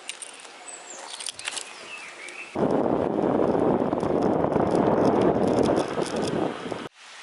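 Small birds chirping in woodland. About two and a half seconds in, a loud, steady rush of wind on the microphone with tyre noise takes over as a bicycle speeds down a paved road; it cuts off abruptly near the end.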